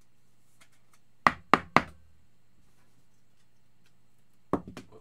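Knocks on a tabletop as cards are handled: three sharp knocks in quick succession about a second in, then a softer cluster of quick knocks near the end.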